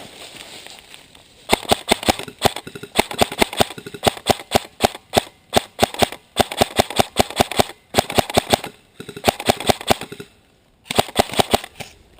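Airsoft rifles firing in rapid full-auto bursts, about eight strings of fast clicking shots broken by short pauses, with a lull near the end before one last burst.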